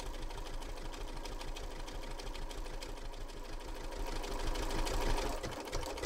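Bernina B475 sewing machine stitching a dense zigzag, the needle swinging side to side in a rapid, steady rhythm of stitches.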